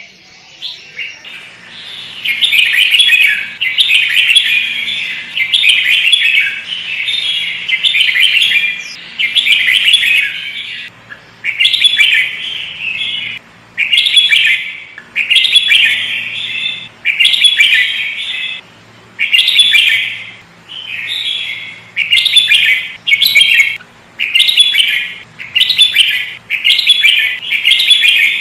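Sooty-headed bulbul (kutilang) singing loudly in quick chattering phrases, nearly continuous at first and then in bursts of about a second with short gaps between them.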